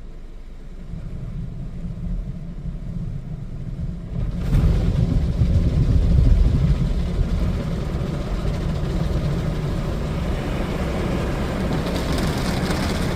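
Ryko Softgloss MAXX soft-touch car wash's top brush working over the car during the wash. A low rumble builds, then jumps sharply louder about four seconds in, and stays loud and steady, with more hiss near the end.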